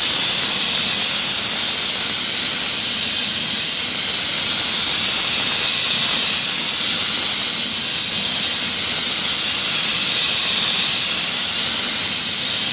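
Soft abrasive blasting nozzle blasting paint off a truck's metal body: a loud, steady hiss of air and media that swells slightly about six seconds in and again near ten.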